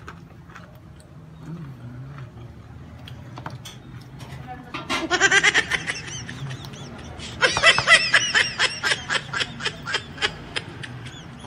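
Quiet chewing with faint clicks, then rapid, high-pitched laughter, a short burst about five seconds in and a longer run from about seven and a half to ten seconds.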